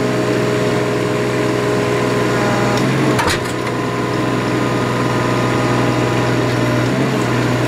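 Hydraulic pipe-pulling machinery for trenchless sewer replacement running with a steady hum, with one short sharp knock about three seconds in.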